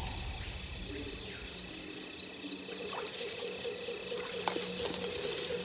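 The deep rumble of an impact explosion dies away in the first second or so, leaving forest ambience. Insects chirp steadily in quick pulses, with faint bird calls, a short crackle of debris about three seconds in and a click about halfway through.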